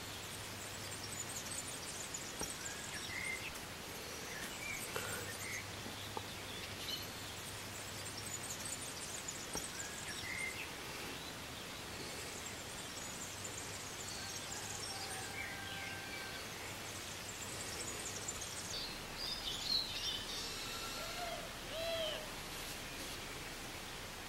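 Outdoor ambience: a steady hiss with scattered short bird chirps and calls, a few louder ones near the end.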